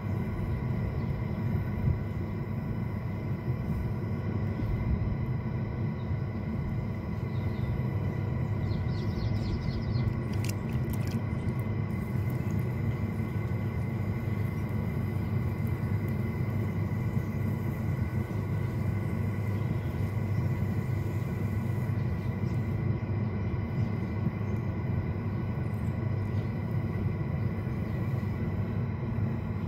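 Motor-driven potter's wheel spinning, giving a steady low rumble with a faint steady hum, while a clay lid is thrown on it.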